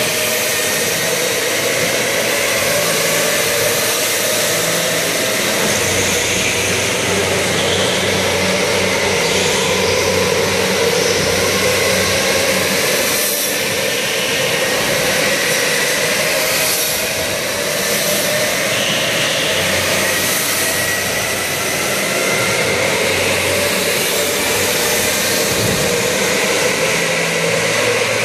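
Electric indoor go-karts racing around the track: a steady, loud motor whine from several karts at once, its pitch drifting slowly up and down as they speed up and slow for the corners.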